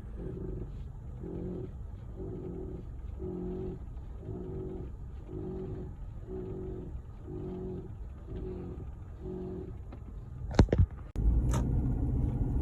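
Rhythmic creaking squeak from a Toyota Avensis T25, repeating about every 0.6 seconds: the squeak this car makes when moving and turning the steering wheel. Near the end a few sharp clicks, then a louder low rumble starts.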